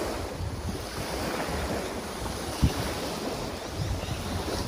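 Wind buffeting the microphone, with small waves lapping against the lakeshore. One brief low thump about two and a half seconds in.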